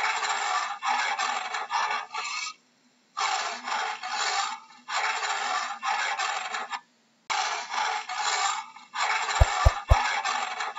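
Leopard giving its sawing call: repeated hoarse, rasping grunts at about two a second, in bouts broken by short pauses. A few sharp clicks come near the end.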